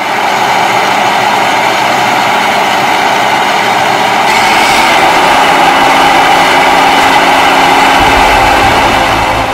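John Deere CTS 9780 combine harvester running steadily, a dense mechanical noise of engine and machinery. It grows a little louder about four seconds in, and a deeper rumble comes in near the end.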